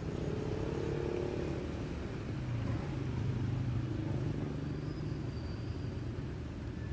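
Steady low engine rumble, with a hum that wavers slightly in pitch.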